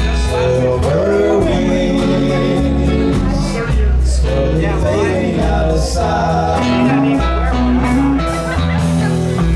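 Live country trio of acoustic guitar, hollow-body electric guitar and upright double bass, playing a slow song with male voices singing over the instruments.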